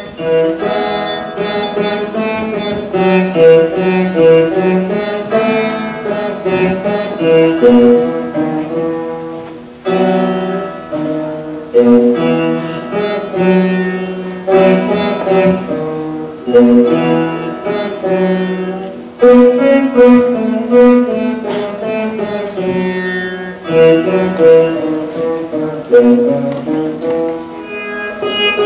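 Two Saraswati veenas played together in a Carnatic-style piece: a continuous melody of plucked notes, each ringing on after it is struck.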